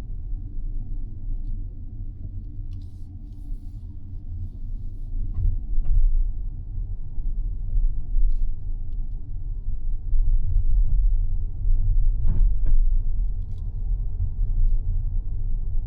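Mazda 6e electric sedan driving: a steady low rumble of road and tyre noise, with a few faint ticks and a short thump about twelve seconds in.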